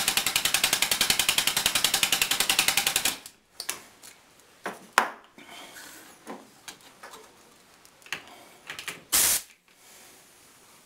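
Old chainsaw's two-stroke engine, converted to run on pressure fed through a hose, running fast with rapid, even exhaust puffs. It stops abruptly about three seconds in. Then come a few clicks and knocks of the fittings, and a short sharp hiss from the hose coupling near the end.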